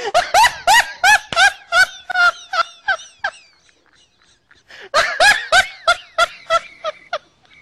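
A person laughing hard in a run of high-pitched bursts, about three or four a second, breaking off for about a second and a half midway and then starting again.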